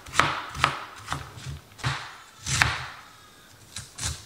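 Chef's knife slicing thin strips of red cabbage, each stroke crunching through the leaves and knocking on the cutting board, about two strokes a second. The slicing stops about two and a half seconds in, with a couple of light taps near the end.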